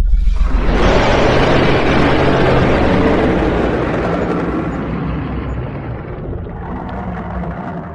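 Dragon sound effect: a long, loud, rasping blast over a deep low rumble, swelling within the first second and slowly fading over several seconds.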